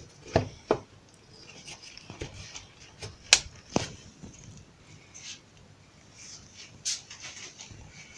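Steel C-clamps being fitted and tightened on a glued-up log box: scattered sharp knocks and clicks of metal against wood and the workbench, the loudest about three seconds in.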